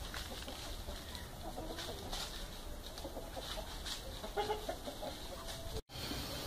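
Chickens clucking faintly, a few short, scattered calls over steady background noise, broken by a brief dropout near the end.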